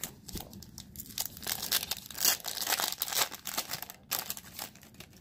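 Foil wrapper of a Panini Threads basketball card pack crinkling and tearing as it is ripped open by hand. The crackling dies down about four seconds in.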